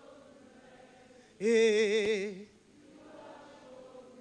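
A woman sings one long, loud note with wavering vibrato into a handheld microphone, starting about a second and a half in and lasting about a second. Faint singing voices of a congregation are heard before and after it.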